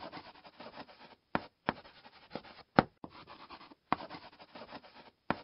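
Writing sound: short scratchy strokes with brief pauses between them, broken by several sharp taps.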